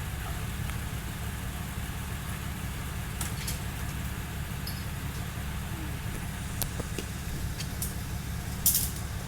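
A vehicle engine idling with a steady low rumble, with a few faint clicks and knocks over it.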